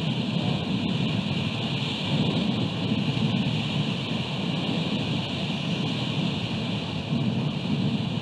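Wind and rain on an outdoor nest camera's microphone: an uneven low rumble under a steady hiss.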